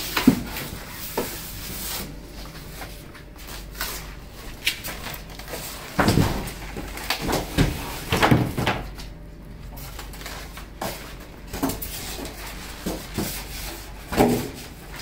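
Cardboard box panels and polystyrene foam packing being handled and lifted off a pallet: irregular knocks, scrapes and rubbing, with a cluster of louder bumps a little past the middle.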